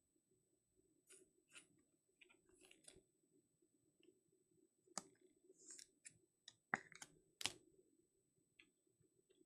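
Faint scattered clicks and rustles of sports cards and their packaging being handled, with a few sharper clicks around five to seven and a half seconds in.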